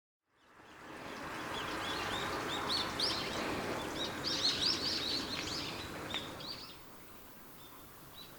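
Many small birds chirping in quick, short calls over a steady outdoor hiss, the chirps thickest in the middle and thinning as the sound grows quieter near the end.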